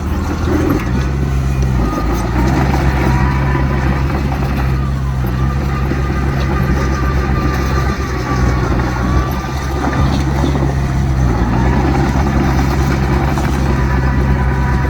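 Diesel engine of heavy earthmoving machinery running steadily, its pitch shifting a couple of times as it works, with a faint wavering whine above it.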